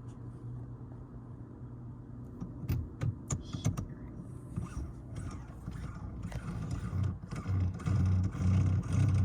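Shift knob being screwed by hand onto the threaded gear lever: scattered clicks and knocks, then denser rubbing and knocking that grows busier in the second half.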